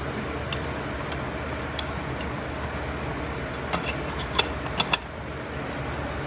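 Light metallic clicks and clinks of hand tools working on engine parts, scattered, with a quick run of sharper clicks about four to five seconds in, over a steady background hum.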